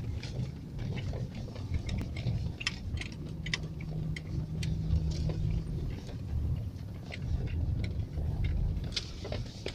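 Car driving on a snowy highway, heard from inside the cabin: a steady low engine and road rumble with many scattered sharp ticks and clicks. A faint steady hum sounds for a couple of seconds in the middle.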